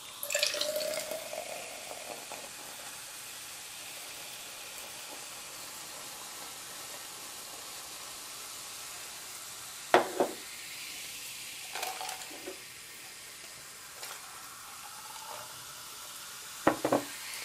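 Carbonated soda being poured from cans into plastic tumblers: a steady fizzing hiss. A few sharp clicks come about ten seconds in and again near the end.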